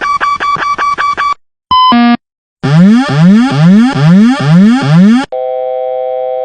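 A sequence of Boeing cockpit warning tones: a tone pulsing rapidly about five times a second, then a brief two-note chime. Next comes a wailing tone rising in pitch six times over, and near the end a steady continuous horn begins.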